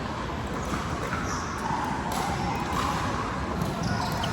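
Steady din of a large indoor sports hall with several pickleball games going, broken by a few faint pickleball paddle-and-ball pops with some echo.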